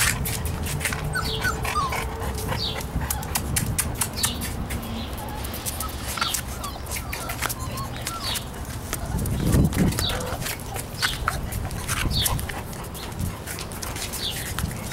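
Bullmastiff puppies whimpering in short, high squeaks, over many small clicks and taps. A louder low rumble comes about nine and a half seconds in.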